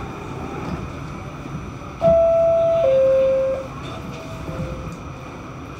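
New York City Subway door chime: two descending tones about two seconds in, each held under a second, the signal that a train's doors are about to close. Under it runs a steady hum of a train standing in the station.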